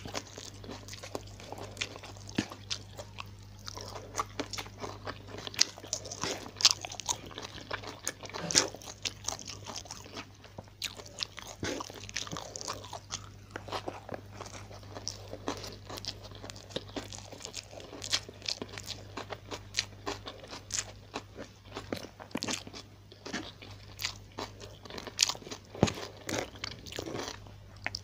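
Close-miked eating by hand of fried fish, rice and vegetables: a steady run of crunches, bites and wet chewing clicks, over a constant low hum.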